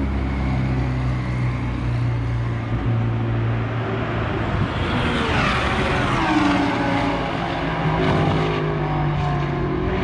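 Race car engine running at low revs as it drives along the pit lane. About halfway through, a car engine sweeps down in pitch as it goes by at speed, with more engine sound from cars on the circuit near the end.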